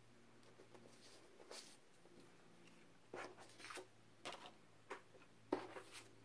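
Faint handling sounds of a thin plastic stencil being lifted off card stock and set down on a craft mat: a scatter of soft scrapes and taps that grow more frequent and a little louder after about three seconds.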